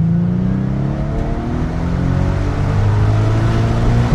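Infiniti G37's 3.7-litre VQ37VHR V6 through a Fast Intentions cat-back exhaust, heard from inside the cabin, pulling under acceleration in a manual gearbox's second gear. The pitch drops with a gear change just after the start, then climbs steadily as the revs build. The tone is subdued, with the factory catalytic converters still in place.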